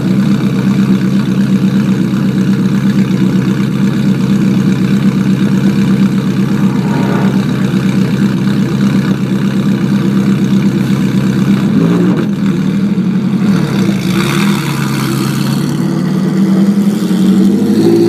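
Ferrari F430 race car's V8 idling steadily, then revving unevenly about twelve seconds in and rising in pitch as the car pulls away near the end.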